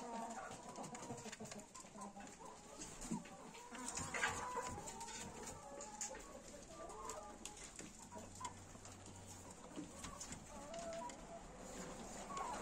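Chickens clucking quietly, with scattered small clicks and rustles.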